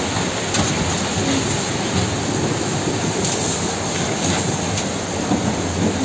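Steady rush of churning seawater as a tsunami current pours through a marina between moored boats.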